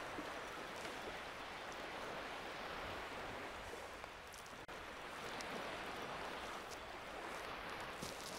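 Small waves washing onto a sandy beach: a steady hiss of gentle surf that swells and eases slightly.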